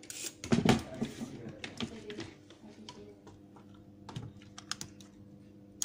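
Small irregular clicks and taps of a screwdriver working the screws on a plastic blower-fan housing, with a louder knock about half a second in.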